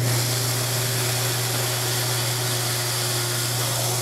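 Power drill running steadily as it bores a pilot hole through a wooden strip, the bit cutting into the wood. It starts abruptly, over a steady low hum.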